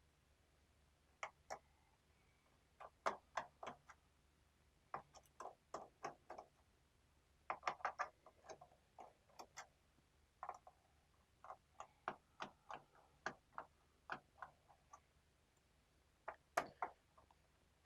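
Faint, irregular clicks and ticks of a small screwdriver turning out the bottom-cover screws of an Asus P2520L laptop, coming singly and in short clusters of three or four.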